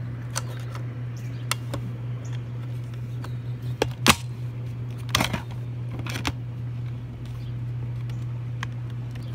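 Plastic electric airsoft gun being handled as its battery is fitted back in: scattered clicks and knocks, the loudest about four seconds in and a short cluster just after five. A steady low hum lies under them.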